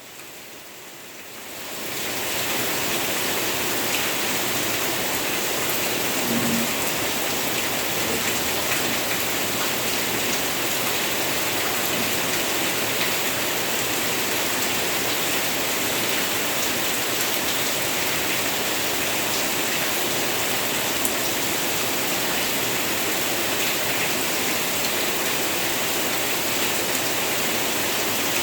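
Steady rain falling, fading in over the first two seconds and then holding at an even level.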